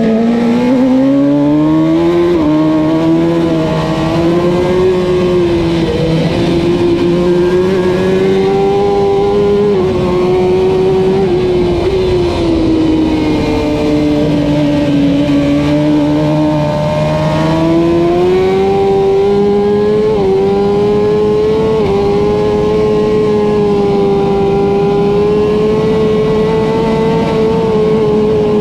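Kawasaki Ninja ZX-10R superbike's inline-four engine under hard acceleration, heard from the rider's helmet with wind rush. It pulls out of a slow corner with a rising note and a quick upshift about two seconds in, then holds a high note near full throttle. It eases off slightly in the middle before climbing again, with brief dips at further gear changes.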